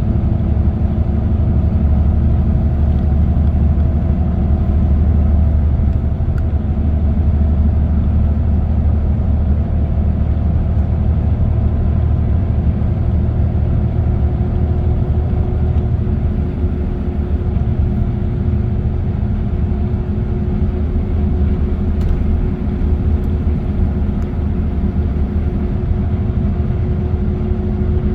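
Car cruising on an expressway: a steady low rumble of tyre, road and engine noise, with a steady engine hum that rises slightly in pitch over the second half.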